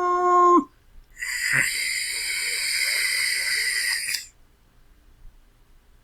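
Cat sound effect: a meow drops in pitch and ends. After a short pause comes a breathy, hissing exhalation lasting about three seconds, which stops abruptly.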